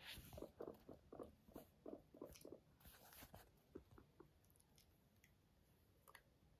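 Sheltie guinea pig purring: a soft run of short pulses, about four a second, that thins out after roughly three and a half seconds, with a few faint rustles.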